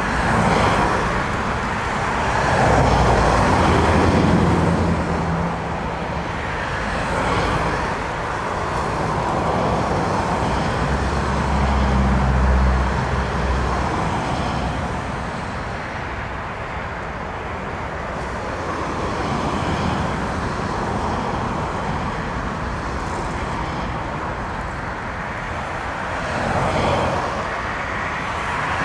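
Storm wind gusting on the microphone, rising and falling every few seconds, over the steady engine noise of jet airliners on the runway.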